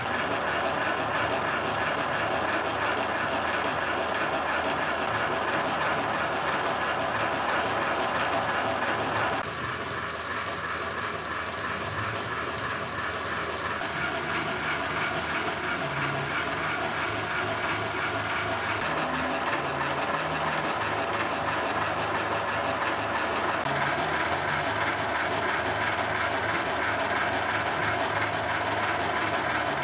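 Universal milling machine running a homebuilt hobbing attachment, its gear train turning the hob to cut a spur gear: a steady mechanical whir with a whine in it, whose tone changes slightly about nine seconds in.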